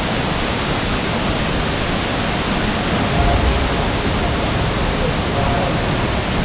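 Waterfall: a steady, loud rush of falling water heard close up.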